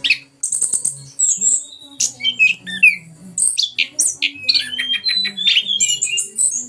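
Chestnut-capped thrush (Anis Kembang) singing a fast, continuous song of varied whistles, chirps and harsher squawky notes.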